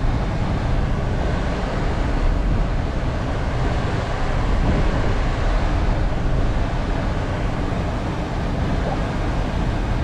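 A steady low rumble of road and tyre noise mixed with engine sound, heard inside the cabin of a moving Skoda Slavia with a 1.0-litre three-cylinder turbo-petrol engine.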